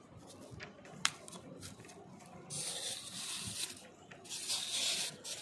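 Gloved fingers working on a polystyrene foam board: a sharp click about a second in, then two hissing, rustling scrapes of about a second each.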